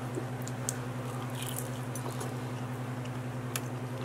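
Close-up chewing of a bite of pepperoni pizza: faint wet mouth sounds and a few soft clicks, with one sharper click about three and a half seconds in, over a steady low hum.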